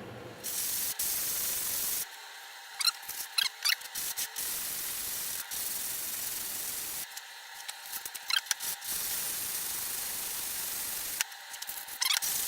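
A rough cast part of a tenon jig being rubbed back and forth by hand on abrasive on a flattening plate to lap its face flat: stretches of steady rasping hiss with short squeaky scrapes between strokes.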